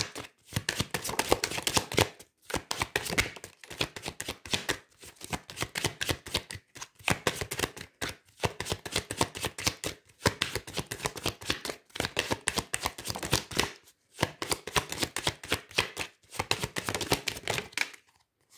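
A deck of oracle cards being shuffled by hand: a quick patter of card edges flicking against each other, in runs of a few seconds with short breaks between.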